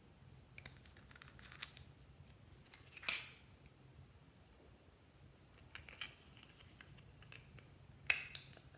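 Slime being squeezed and played with by hand: scattered small clicks and crackles, with two sharper pops, about three seconds in and near the end.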